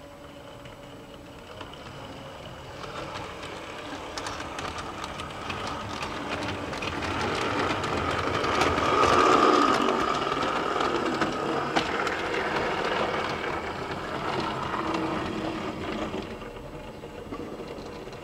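OO-gauge model steam locomotive with a five-pole armature motor running past: a steady motor whir with wheels clicking over rail joints and points. It grows louder as it approaches, is loudest about halfway through, and fades as it moves away.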